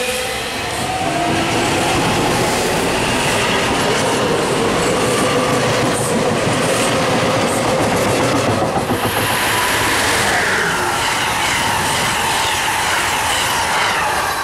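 SEPTA electric multiple-unit commuter train passing close at speed: a loud, steady rumble of wheels on rail, with clicking over rail joints. A whine slides down in pitch over the first few seconds, and some wheel squeal comes in about two-thirds of the way through.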